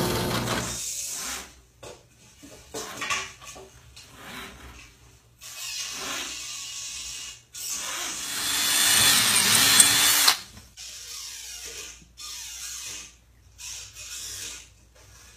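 A power tool spins down about a second in, followed by scattered knocks and handling noises. About seven and a half seconds in a power tool runs again for nearly three seconds, getting louder, then stops abruptly, and light knocks follow.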